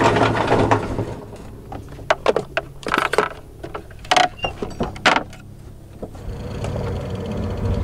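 Wind and water rush for about a second, then a string of sharp metallic clanks and clicks from the anchor gear: the chain on the bow roller and the windlass locker lid. A low steady hum follows near the end.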